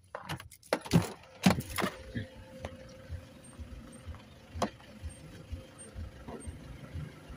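Clicks and knocks of a pickup truck's door and handle as someone climbs out of the cab. There is a cluster of knocks in the first two seconds and one sharp knock about four and a half seconds in.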